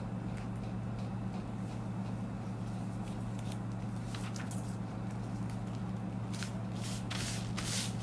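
Paper and plastic rustling and crinkling as the backing is peeled off an adhesive shipping label and the label is handled over a plastic courier envelope. The crackles are scattered, with a few louder ones near the end, over a steady low hum.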